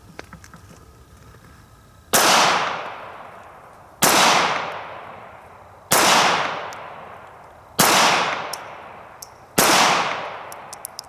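Kimber Micro .380 ACP pistol fired five times at an even pace, about two seconds apart, each shot dying away over a second or so. A few light clicks come just before the first shot.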